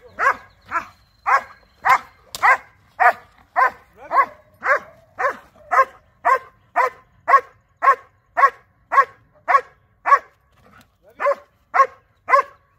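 A large dog barking steadily at a helper hidden in a wooden blind, about two barks a second, with a short pause about ten seconds in: the bark-and-hold of protection training.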